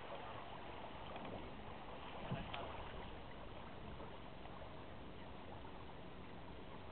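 Steady rush of wind and water aboard a small sailboat under sail, with one brief knock a little over two seconds in.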